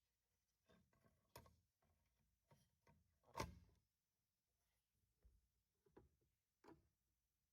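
Scattered light clicks and knocks of tools and parts being handled during reassembly of an electric motor, with one louder knock about three and a half seconds in.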